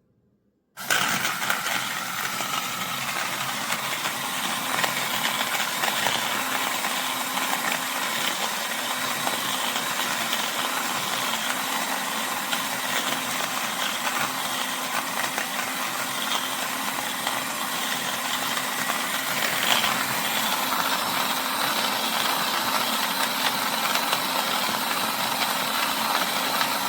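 Small electric motor of a portable burr coffee grinder running steadily as it grinds beans, starting about a second in.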